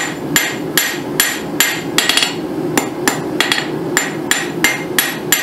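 Hand hammer striking hot quarter-inch mild steel round stock on an anvil with its flat face, drawing out the tip of a hook: a steady run of blows, about two to three a second, each with a bright metallic ring. A steady low noise runs underneath.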